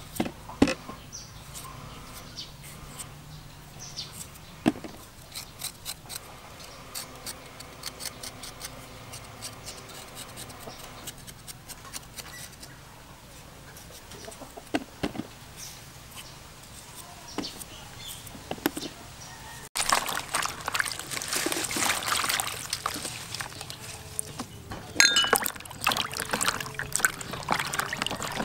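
A small knife scraping and paring fresh ginger root, with scattered light clicks and scrapes. About two-thirds of the way in, this gives way to louder swishing and splashing as hands wash the peeled ginger in a basin of water.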